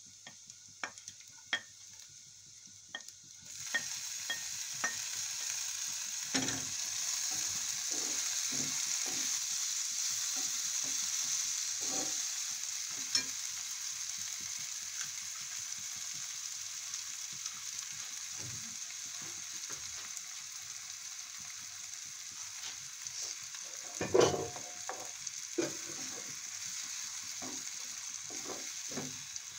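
Chopped onion, tomato and green chilli sizzling in oil in a frying pan, with a spatula clicking and scraping against the pan as they are stirred. The sizzle grows louder about three seconds in, and there is a brief louder burst of sizzling and clatter about 24 seconds in.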